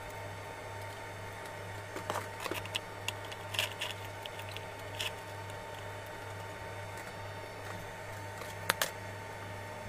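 Light clicks and taps of small metal model parts being handled and set down on a workbench, a cluster of them between about two and five seconds in and two sharp clicks near the end, over a steady low hum.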